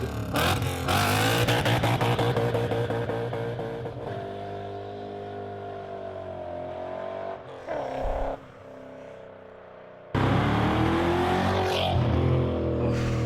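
Car engines revving and running hard, the pitch rising and falling with the throttle, in cut-together clips: it drops back suddenly about 8 seconds in and comes back loud about 10 seconds in.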